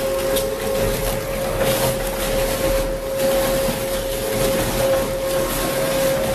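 A machine running steadily: a constant mid-pitched whine over a dense mechanical noise.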